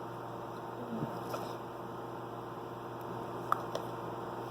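Quiet room tone with a steady low hum, broken by a few light clicks and taps of objects being handled, the sharpest a single tick about three and a half seconds in.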